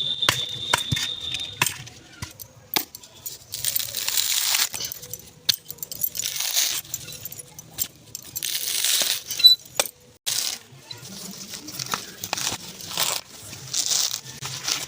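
A steady high whistle that cuts off about a second and a half in, then kitchen clatter: scattered clinks and knocks of utensils with several short bursts of scraping or hissing.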